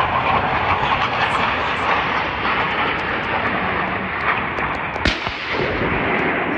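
Su-25 attack jet's twin turbojet engines making a loud, steady noise as it flies low past, with one sharp crack about five seconds in.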